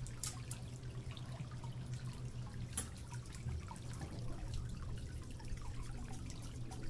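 Water dripping and trickling in irregular small ticks over a steady low hum, with a few sharper clicks.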